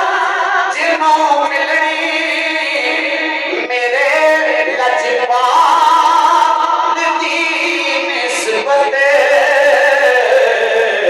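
Naat singing: a voice holding long, wavering melodic notes without words being clearly articulated.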